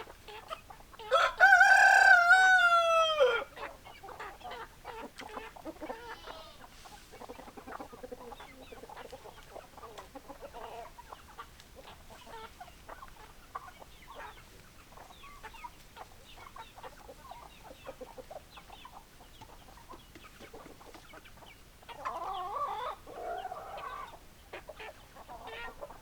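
A rooster crows once, loud and drawn out with a falling tail, about a second in, over hens clucking steadily throughout. Near the end a louder flurry of chicken calls rises for a couple of seconds.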